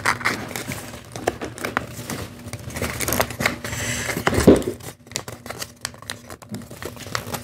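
A sheet of white origami paper crinkling and crackling in irregular small clicks as it is folded and pressed along its creases into a flexagon. A single louder thump about four and a half seconds in.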